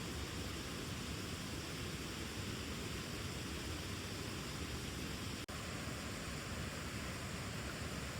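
Steady rushing of a mountain stream, water running over rocks as an even hiss, with one momentary break about five and a half seconds in.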